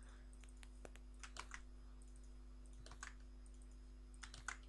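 Faint clicks of a computer mouse and keyboard in a few short clusters as code segments are copied and pasted one at a time, over a faint steady hum.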